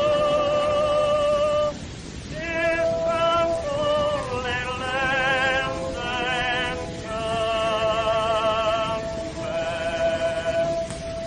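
Early-1900s phonograph recording of music: a slow melody of held notes with heavy vibrato, breaking off briefly about two seconds in, over a steady hiss.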